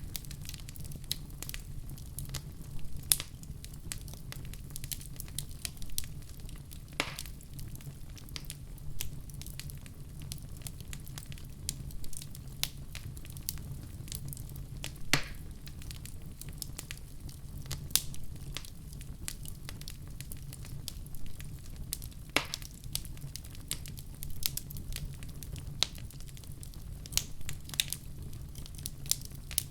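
Wood fire crackling in a fireplace: frequent irregular sharp pops and snaps, a handful of them louder, over a steady low rumble of the flames.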